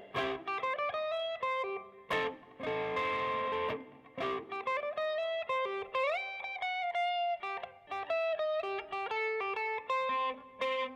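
Guitar played through effects in an instrumental break: a melodic line of single plucked notes, with a strummed chord ringing out about two seconds in.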